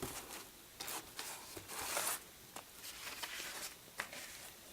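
Cardboard LP record sleeve being handled: soft rustling and sliding scrapes with a few light clicks, the loudest scrape about two seconds in.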